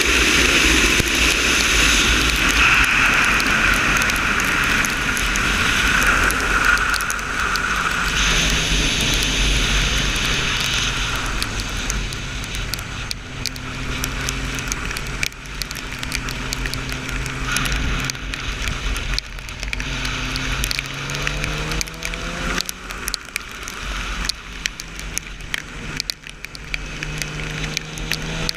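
Motorcycle engine heard from an onboard camera at track speed, with heavy wind rush on the microphone. After about eight seconds the engine note drops and holds lower through a corner, then rises again twice towards the end as the bike accelerates.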